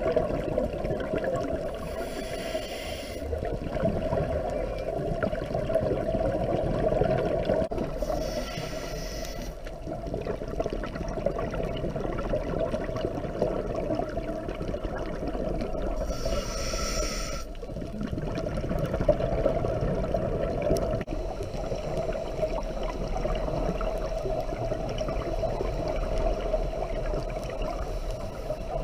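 Scuba diver breathing through a regulator underwater, with three bursts of bubbly exhaled air over a steady underwater rush.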